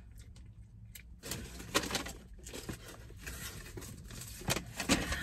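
Paper food wrapper and takeout bag rustling and crinkling in irregular bursts, over a low steady hum.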